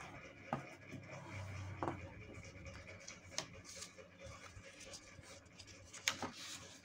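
A square sheet of origami paper being handled, rubbed flat and creased by hand on a wooden table: soft scratching and rustling with a few sharp paper crinkles, the loudest about six seconds in.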